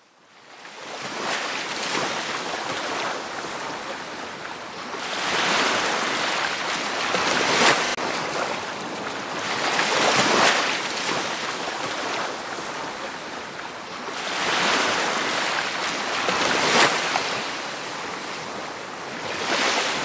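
Ocean waves surging and washing on a shore, swelling and ebbing every few seconds in a steady rush of surf. The sound fades in from a brief dip at the start.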